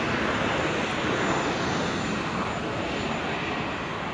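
Twin Pratt & Whitney R-985 Wasp Junior radial engines of a Beechcraft C-45 Expeditor running in a low flyby: a steady, dense engine drone that eases slightly toward the end.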